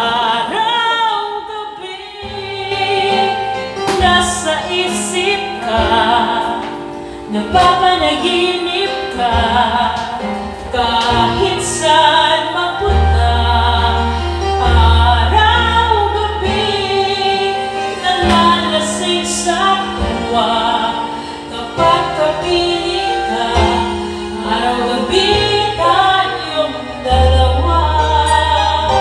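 A woman singing karaoke into a microphone over a backing track with sustained bass notes.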